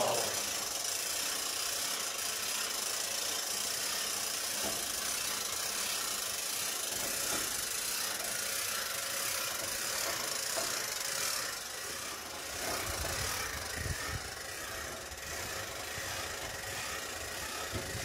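Hand-cranked poultry curtain winch being turned, its gears rattling against a steady background noise.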